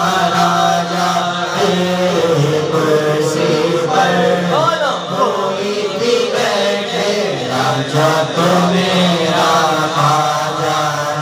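A man sings a manqabat, an Urdu devotional song in praise of a Sufi saint, in long held, ornamented melodic phrases with gliding notes and no clearly sung words.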